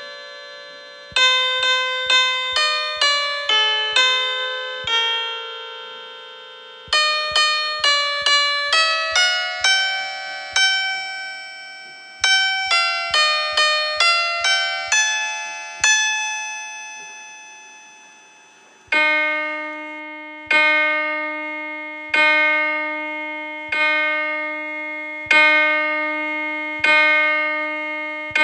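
Piano notes imitating church bell chimes: a melody of struck notes, each dying away, then from about two-thirds in a single lower note struck over and over, about every second and a half, like a bell tolling the hour.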